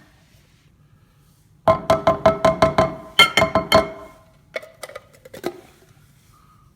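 Rapid tapping on the burr grinder's plastic ground-coffee container: two quick runs of ringing knocks about six or seven a second, then a few single clicks.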